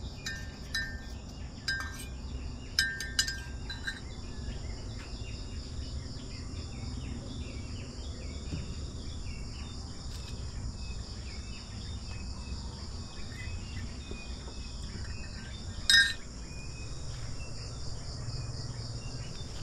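Countryside insects buzzing steadily at a high pitch, with short chirping calls in the first few seconds. A single sharp clink about sixteen seconds in.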